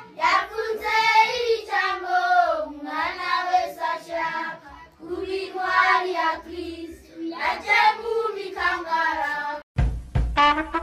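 Group of children singing a song together, in phrases a second or two long with short breaks between them. Near the end the singing cuts off abruptly and swing-style music with brass comes in.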